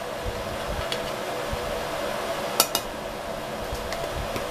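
A metal spoon clinking, a sharp double clink about two and a half seconds in with a few fainter taps around it, as baking powder is spooned from its can into a plastic bowl. A steady hum runs underneath.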